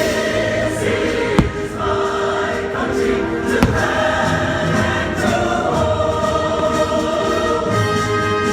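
A choir singing over the fireworks show's orchestral soundtrack, played loud over the park speakers, with two sharp bangs, about a second and a half in and two seconds later, from fireworks bursting.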